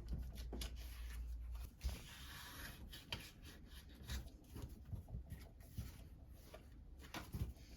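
Paper and cardstock being handled: rustling and sliding, with scattered light taps and a longer rustle about two seconds in.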